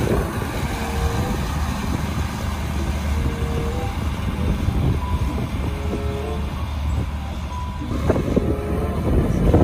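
Farm tractor's engine running steadily as the tractor drives across the field, with a steady low rumble throughout.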